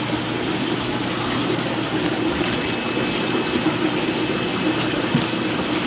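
Steady running water and hum of aquarium filtration and aeration. A faint thin whine joins about halfway through.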